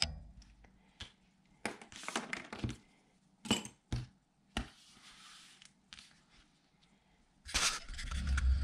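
Paper and cardstock handled on a craft table: a few short, sharp taps and crinkles, then a louder rustle of paper sliding about a second before the end.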